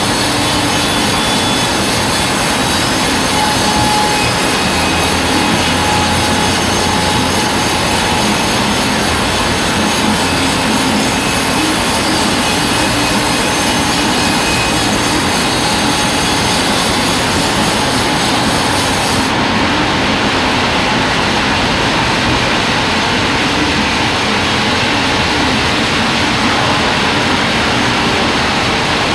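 Horizontal band sawmill running, its blade cutting lengthwise through a log to make boards; a loud, steady whirring saw noise with no break.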